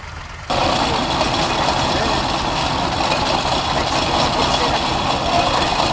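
Steam ploughing engine running steadily, a loud mechanical sound with a steady hiss over it, cutting in abruptly about half a second in over a quieter engine sound.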